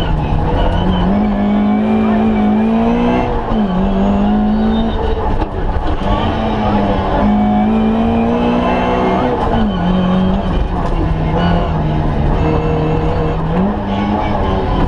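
Ford Escort Mk2's 1300 four-cylinder engine running hard at high revs, heard from inside the cabin, with road and tyre noise underneath. Its pitch climbs and then drops or jumps sharply several times as it changes gear.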